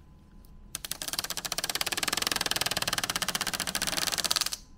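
A plastic pull strip peeled away from the protective wrap on a Neat Frame display, making a fast, even run of crackling clicks. It begins about a second in and stops abruptly near the end.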